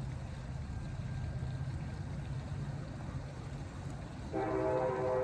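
Steady low hum in the background, then about four seconds in a louder sustained chord of several steady tones starts and holds.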